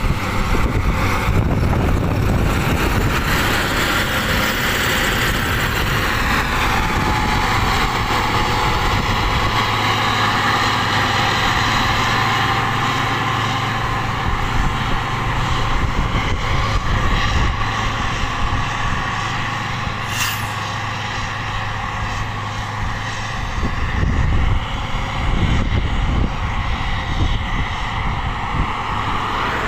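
Caterpillar 140G motor grader's diesel engine running steadily as the grader works crushed rock along the road shoulder. Another road vehicle's rumble rises near the end.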